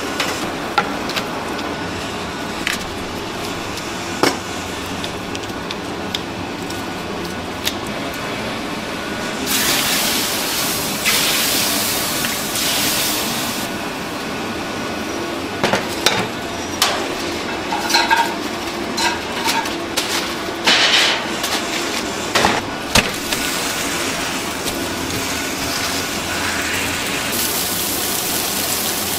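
Iron serving plates and cookware clinking and clanking on a row of gas burners, a flurry of knocks about halfway through, with two stretches of hissing, one a third of the way in and one near the end.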